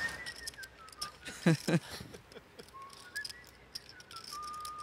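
A person whistling a short tune that slides down, rises again and ends on a held note. Light clicks and two brief voice sounds about a second and a half in.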